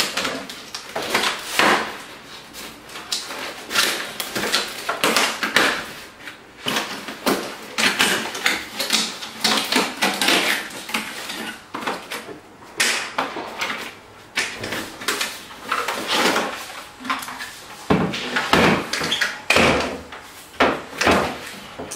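A cardboard box being opened and unpacked: packaging rustling and crackling in quick irregular bursts, with scrapes and knocks as the contents are handled and lifted out.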